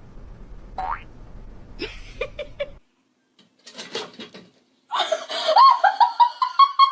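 A person laughing in quick repeated bursts, loudest in the last two seconds, after a few short, quieter pitched sounds.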